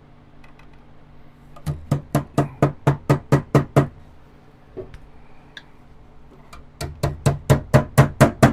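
Hammer tapping on wood in two quick runs of sharp strokes, about ten then about eight, roughly four a second, with a pause between them.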